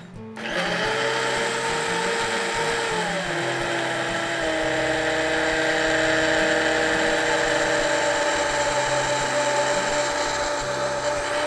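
Vitamix Vita-Prep blender starting up about half a second in and running steadily, puréeing seared foie gras, Greek yogurt and reduced veal stock into a smoothie. Its motor pitch steps down and back up within the first few seconds as the variable speed is changed, then holds steady.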